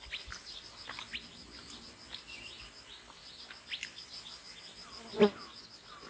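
Steady high insect drone with a fast pulsing trill, under scattered short, falling bird chirps. A brief loud thump about five seconds in.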